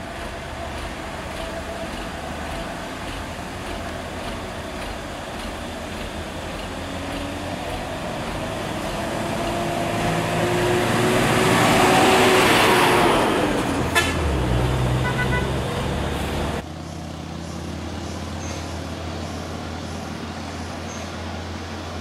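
Diesel trucks pulling up a steep hairpin climb, their engine notes gliding up and down. One truck passes close, loudest about twelve seconds in, followed by a sharp click and a brief toot. The sound then changes abruptly to a steadier low engine hum.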